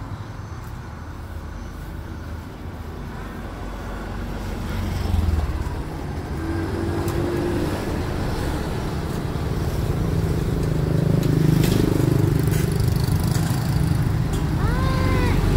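Street traffic: a continuous rumble of cars and motorbikes that grows louder toward the end.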